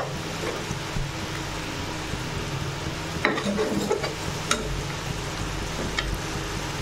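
Steel spoon stirring a simmering tomato-and-onion curry masala in a nonstick pan, the sauce sizzling steadily, with a few short scrapes and taps of the spoon against the pan.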